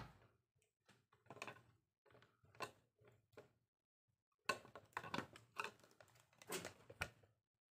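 Faint clicking and rustling of a power cord and plug being handled and unwound, with a sharper click at the start and a busier run of clicks about four and a half seconds in.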